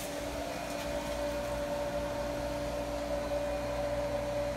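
An electric motor running steadily, a constant hum with a higher whine over it.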